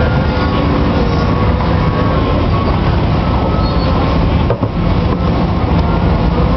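Cat 320D LRR excavator's diesel engine running steadily under load while the boom and bucket dig, a loud continuous machine noise with a brief dip about four and a half seconds in.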